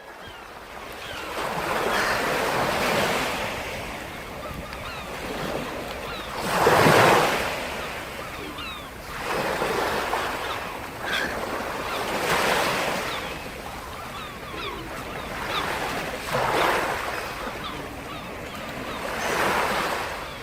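Waves washing in on a shore, each one swelling and falling back every few seconds, the loudest about a third of the way in.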